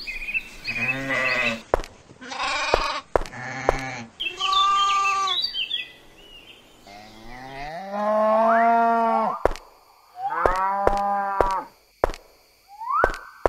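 Sheep bleating about three times, then cows mooing in two long calls, with a third moo starting near the end. Sharp clicks sound between the calls.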